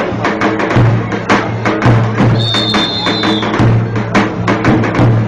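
Traditional drum music: a davul bass drum beaten in a fast, steady rhythm, heavy low booms with quick sharp stick clicks between them. A high, steady whistle-like tone sounds for about a second midway.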